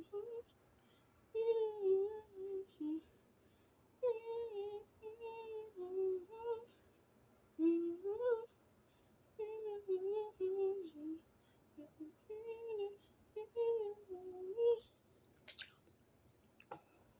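A person humming a tune without words, in short melodic phrases with a wavering pitch, stopping about fifteen seconds in. Near the end come two sharp clicks.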